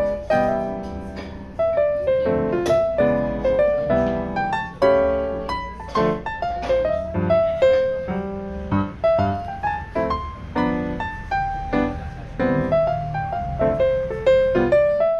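Background piano music: a melody of many short struck notes over lower chords.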